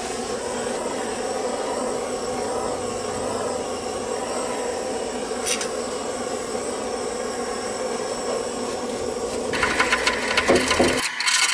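Handheld butane gas-canister blowtorch burning with a steady buzzing hiss as its flame heats car underseal. About nine and a half seconds in comes a short spell of rattling and clicking.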